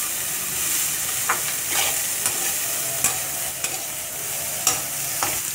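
Grated cauliflower and green beans sizzling in hot oil in a metal kadai while a metal spatula stirs them, with a short scrape of the spatula against the pan every half second to a second.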